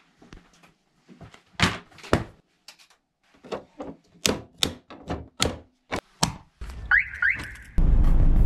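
Modular circuit breakers in a home breaker box switched off one after another: a run of sharp single clicks. Near the end come two short rising chirps, then steady road and engine noise inside a moving car.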